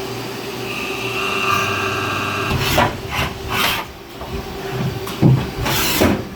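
Mill-turn CNC lathe machining a Delrin plastic part with live tooling. A steady machine hum carries a high tool whine at first, then from about two and a half seconds in comes a series of uneven rasping cutting passes.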